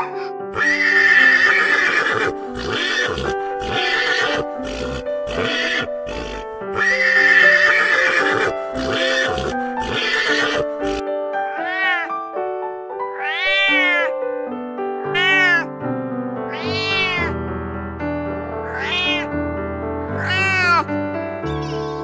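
A plains zebra calling over background music: two long, rasping brays, each followed by a string of short barks. Around halfway it gives way to a domestic cat meowing about six times, each meow rising and then falling in pitch.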